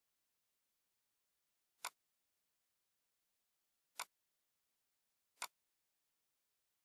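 Three sharp computer mouse clicks, about two seconds and then a second and a half apart, as menu items are clicked.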